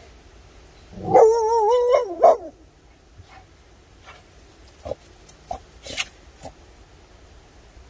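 Pit bull puppy gives one drawn-out, wavering, high-pitched whining bark lasting about a second, starting about a second in, then a short yap right after it. A few faint clicks follow.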